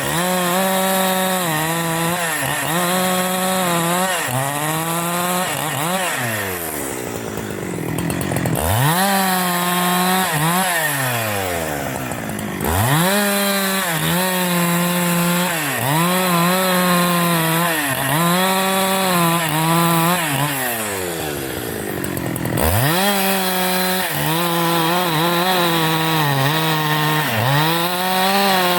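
Husqvarna 372 XP two-stroke chainsaw running at high revs, cutting wood, its pitch dipping and recovering every second or so as the chain takes load. Twice the revs fall away sharply and climb back up, about a quarter of the way in and again about three quarters in.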